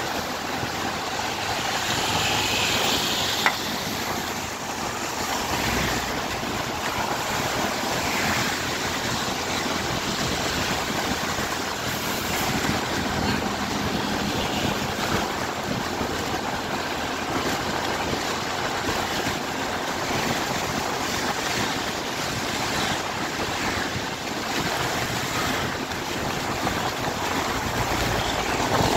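Wind buffeting the microphone of a moving scooter, with steady tyre hiss on a wet road and the hum of surrounding traffic. A single sharp click comes about three and a half seconds in, and a lorry passes close alongside near the end.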